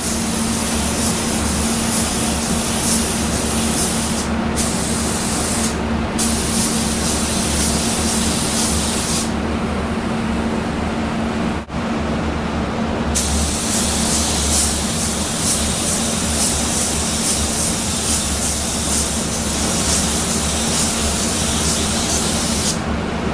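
Gravity-feed paint spray gun spraying metallic base coat: a loud, steady hiss of atomising air and paint. The sharper top of the hiss drops away briefly a few times and for a longer lull around the middle, while a steady low hum runs underneath throughout.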